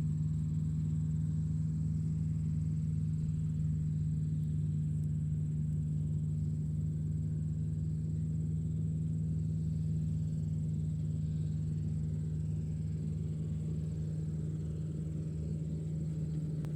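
Tractor engine running at a steady speed: an even, deep hum that holds the same pitch throughout, with a faint high whine above it.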